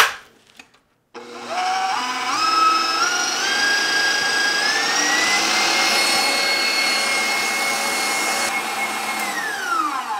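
KitchenAid stand mixer whipping meringue with its wire whisk. Its motor whine starts about a second in and steps up in pitch several times as the speed is raised to high, runs steadily, then winds down as it is switched off near the end.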